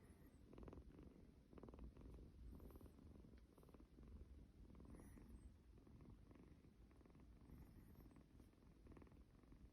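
Kitten purring faintly, the rumble swelling and easing with each breath.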